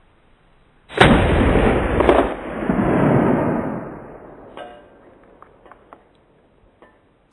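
A black-powder muzzle-loading shotgun fires about a second in, with a second sharp crack about a second later, and the report rolls away in a long echo over about three seconds.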